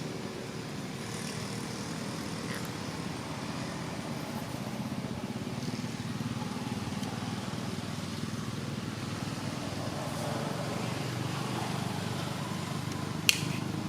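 Steady low engine-like rumble, like a motor running, with one sharp click near the end.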